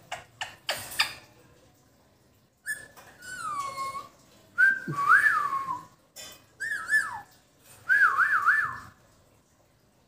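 Whistling: a few short clicks in the first second, then four short whistled phrases starting about three seconds in. The notes glide down, then rise and fall, and the last phrase is a quick up-and-down warbling trill.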